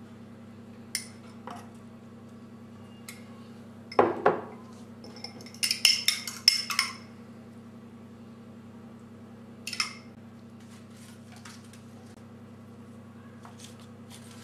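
Kitchenware being handled: a metal spoon clinking against a ceramic bowl, with a knock about four seconds in and a quick run of sharp clinks just after, plus a few lighter taps. A steady low hum runs underneath.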